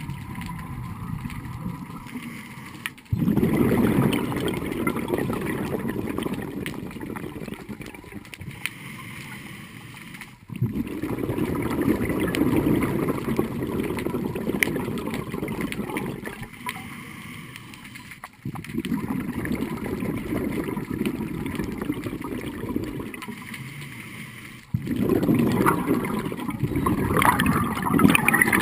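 A scuba diver's regulator breathing underwater: four exhalations of bubbles, each starting suddenly and then fading over several seconds, about seven seconds apart, with quieter breaks between.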